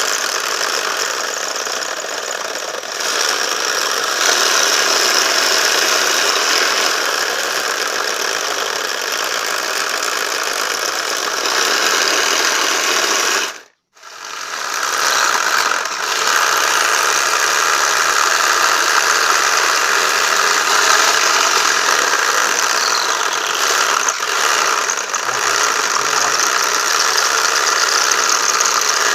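Homemade jigsaw, driven by a 775 DC motor and fitted with a hacksaw blade, running steadily with a rattling mechanical noise. It stops abruptly about halfway through and then starts up again.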